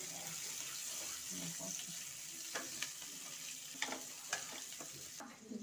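Chopped onion and green capsicum sizzling in hot oil in a frying pan as they are stir-fried, with a few light clicks of the spatula against the pan. The sizzle cuts off just before the end.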